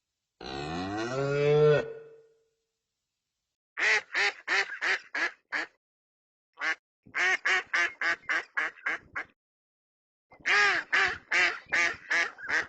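A cow's drawn-out moo rising in pitch, then three runs of rapid, repeated quacking calls from domestic waterfowl, about four calls a second, with short silences between the runs.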